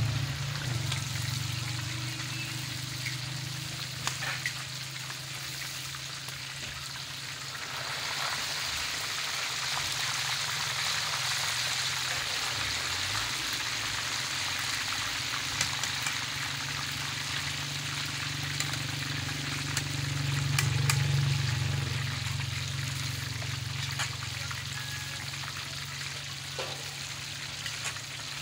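Fish pieces deep-frying in a karahi of hot oil: a steady sizzling hiss of bubbling oil that grows louder about a quarter of the way in. A low hum runs underneath and swells about two-thirds of the way through, with a few light clicks.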